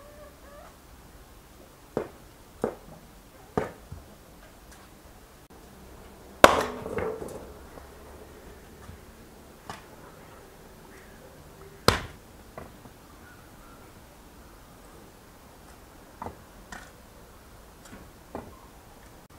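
Split firewood logs knocking against each other as they are gathered and stacked into a brick oven, a series of sharp wooden knocks. The loudest comes about a third of the way through with a short ring after it, and another strong knock follows midway.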